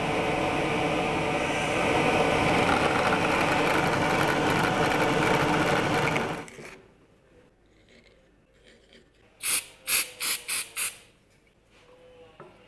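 Drill press running and boring into a wooden block, a steady motor and cutting sound that stops about six and a half seconds in. Near the end come five quick sharp clicks.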